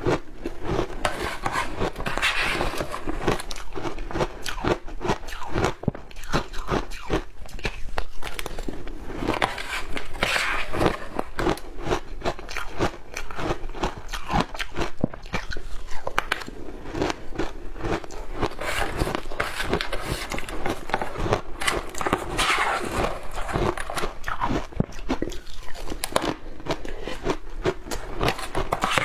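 Shaved ice being bitten and chewed: a dense run of crisp crackling crunches, with heavier crunches every few seconds.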